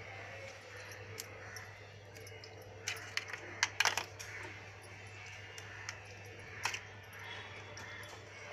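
Blue crabs being cleaned by hand: scattered sharp clicks and cracks of crab shell, with a quick cluster about three to four seconds in and a single crack near the end.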